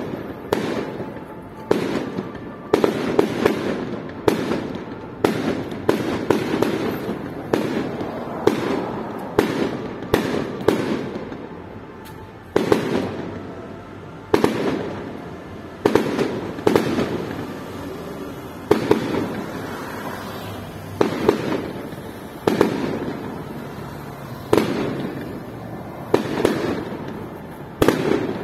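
Aerial fireworks going off in a steady, uneven series of bangs, about one a second, each fading out over a second or so.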